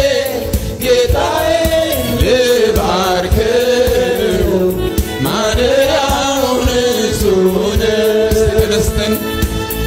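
Amharic gospel song: a man sings long, sliding held notes into a microphone over instrumental backing.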